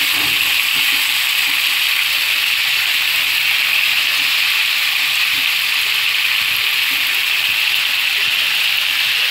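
Chicken pieces sizzling steadily as they fry in hot oil and butter in a pan.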